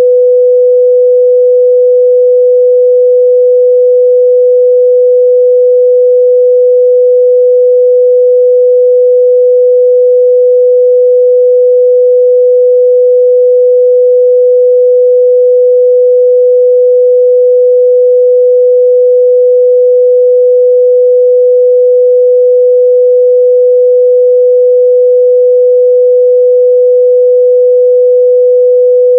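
A steady, loud 497 Hz sine-wave test tone, one pure pitch held without change, used to check a speaker's or headphone's midrange response.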